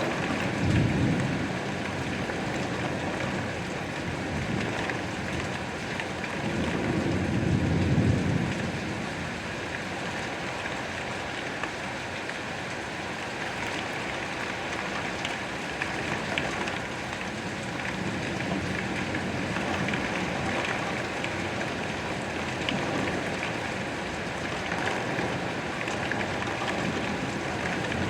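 Steady rain falling, with low rumbles of thunder just after the start and again around seven to eight seconds in.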